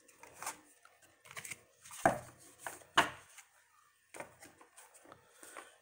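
A deck of fortune cards being handled: scattered soft taps and rustles of card stock, with the two sharpest taps about two and three seconds in.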